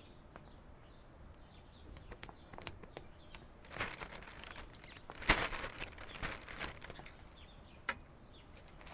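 Faint household clatter in a kitchen: scattered light knocks and clinks of things being handled on the counter and a chair being moved, the sharpest knock about five seconds in.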